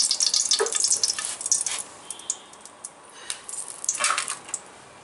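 Cooking oil crackling and spitting in a hot aluminium kadai just after being poured in, dense for about two seconds, then dying down to a few scattered pops.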